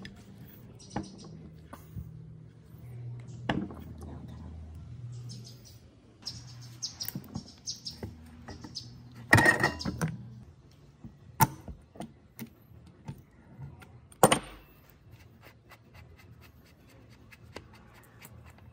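Workshop handling sounds on old tool parts: scattered clicks, taps and short scrapes, with two sharp knocks about eleven and fourteen seconds in, over a low steady hum that fades out about six seconds in.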